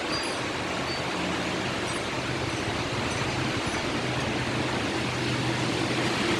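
Strong wind blowing, a steady rushing noise with a low hum underneath.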